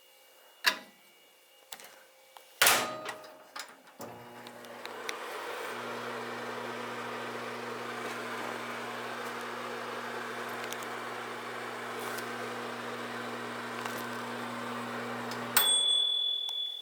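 Two sharp clicks, then a microwave oven starts and runs with a steady electrical hum and fan noise for about eleven seconds. Near the end it cuts off with a sharp click, followed by a high beep.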